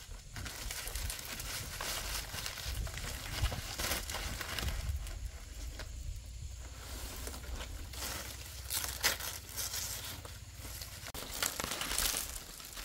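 Fresh fan palm leaves rustling and crinkling as they are handled and pulled into place, irregular, with a few sharper crackles in the second half.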